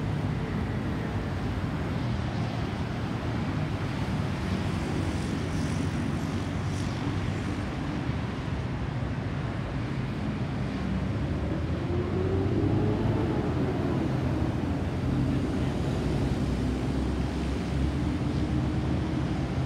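Airbus A320-216 jet airliner with CFM56 turbofan engines flying over at altitude: a steady, distant low rumble that swells slightly about two-thirds of the way through, with a faint tone that bends up and back down.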